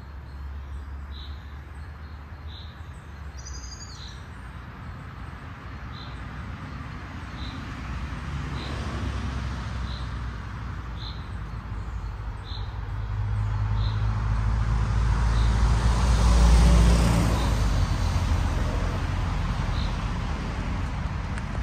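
A passing vehicle: a low rumble swells to a peak about three-quarters of the way through, then eases off. A bird chirps at an even pace throughout.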